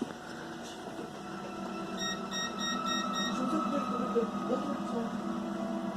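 A quick run of about five short electronic beeps, roughly three a second, over a steady low hum and a faint held tone.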